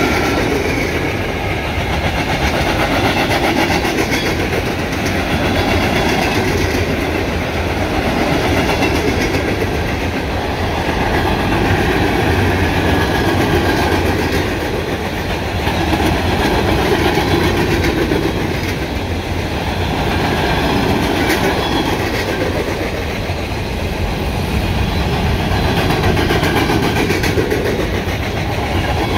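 Freight cars of a long mixed freight train, mostly covered hoppers, rolling past at speed: a steady rumble of steel wheels on rail with clickety-clack, swelling and easing every few seconds as the cars go by.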